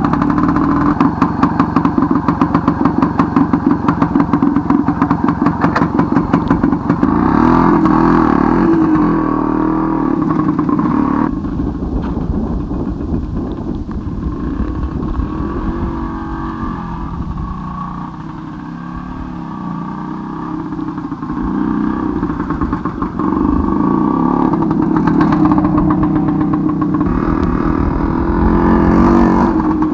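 Tula off-road motorcycle's two-stroke single-cylinder engine, just started, idling with a fast, even pulsing beat, then revved as the bike pulls away. It grows fainter as it rides off and louder again near the end as it comes back.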